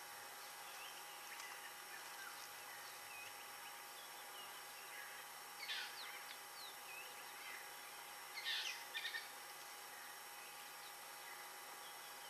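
Wild birds calling: scattered short chirps and whistles over a faint steady hiss, with two louder bursts of calls about six and eight and a half seconds in, the second a quick run of several notes.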